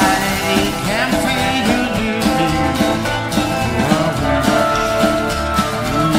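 Live rock-and-roll band playing with upright bass, electric guitars and drums, and an amplified harmonica played into a cupped microphone carrying the lead with bending notes.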